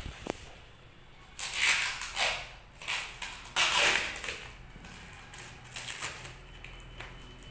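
Plastic mailer wrapping and packing tape on a parcel being torn and pulled open by hand: a run of short rasping tears, loudest around two and four seconds in, then lighter scratching and rustling.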